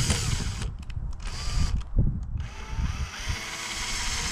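Cordless drill with a 1/8-inch bit pre-drilling a starter hole into a plastic kayak hull: a short burst, then a longer run of about two seconds starting near the middle.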